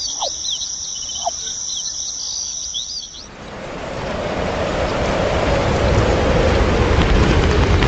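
Crickets chirping in a steady high shrill, cut off abruptly about three seconds in. A rushing noise then swells up and grows louder.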